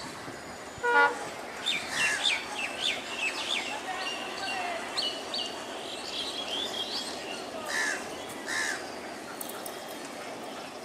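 Birds chirping and calling in quick runs of short notes, with two harsher, lower calls near the end, over steady outdoor background noise. A brief loud pitched call sounds about a second in.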